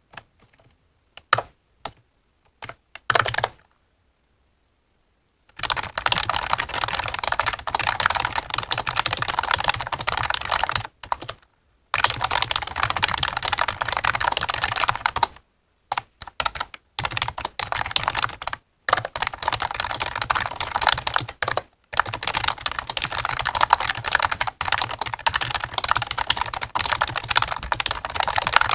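Computer keyboard typing: a few scattered keystrokes, a short pause, then fast continuous typing in long runs broken by brief pauses.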